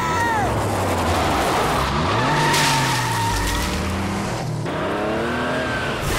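Cartoon sound effects of a car engine revving up and down while its tyres skid and spin, as on snow.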